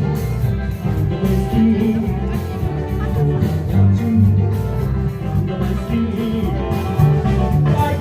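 Music with guitar, held bass notes that change every half-second or so, and a regular beat.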